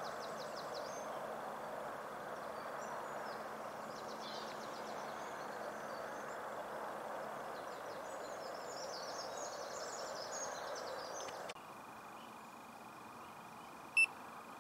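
Steady outdoor background hiss with small birds chirping, dropping sharply about eleven and a half seconds in. Near the end comes a single short, loud electronic bleep from the bite alarm under a ledgered rod, the signal of line movement at the rod.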